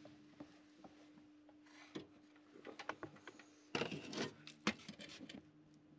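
Faint scattered knocks, clicks and rubbing of someone moving about and handling things in a cramped boat engine room, with a busier cluster of knocks a little under four seconds in. A faint steady hum runs underneath.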